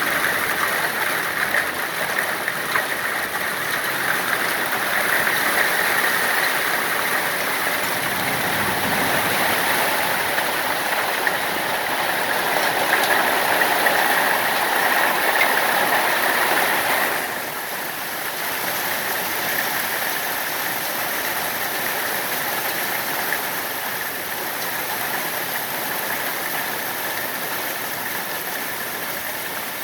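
Hailstorm: a dense, steady hiss of hail and heavy rain pelting down, which drops suddenly in level about 17 seconds in and carries on more evenly.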